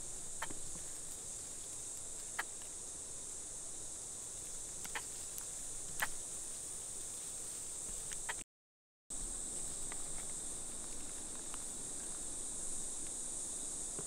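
Steady high-pitched drone of an insect chorus, with a few faint clicks scattered through it; the sound cuts out for a moment about two-thirds of the way through.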